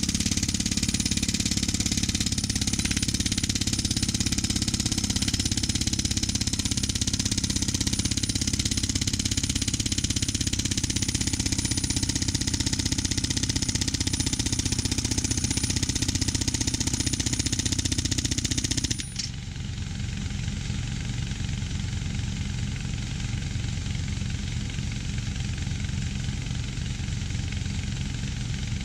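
An engine running steadily, with a loud hiss over it that cuts off abruptly about two-thirds of the way through, leaving the engine running on its own.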